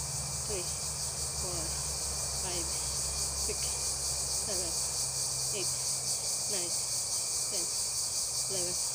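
A chorus of insects trilling steadily and high-pitched in the garden vegetation. Short, faint, falling low notes repeat about once a second beneath it.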